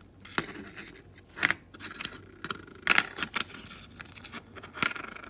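A small telephone ceramic microphone capsule being pried apart by hand: irregular clicks and short scrapes from its plastic housing and foil wrapping.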